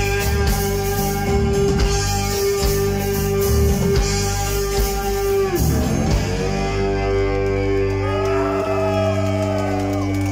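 Live metal band playing with electric guitar, bass guitar, keyboards and drums. A long held chord with drum hits slides down in pitch about five and a half seconds in, then a new chord rings on with bent, wavering guitar notes.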